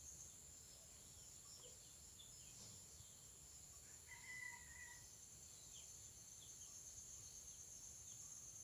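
Near silence: a faint, steady high trill of crickets or other insects in the background, with a brief faint call about four seconds in.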